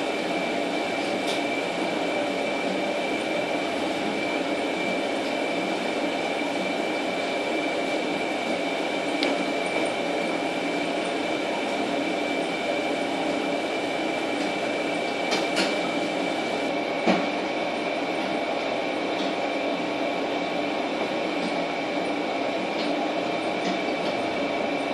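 Steady mechanical hum and hiss of running machinery, with a constant thin high whine and a few faint clicks.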